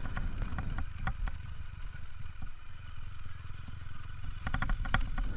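Motorcycle engine running at low speed, with scattered knocks and rattles as the bike rolls over a rutted dirt track.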